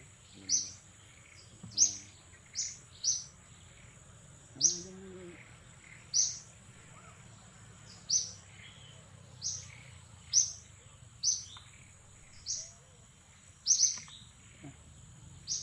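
An animal giving short, high-pitched chirps that fall in pitch, about one every second, over a steady high insect drone. One brief low call comes about five seconds in.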